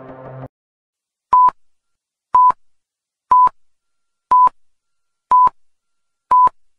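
Electronic countdown-timer beeps: six short beeps at one steady pitch, one a second, with silence between them, after background music cuts off about half a second in.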